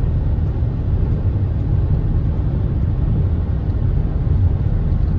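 Steady low rumble of road and engine noise inside a moving vehicle's cab.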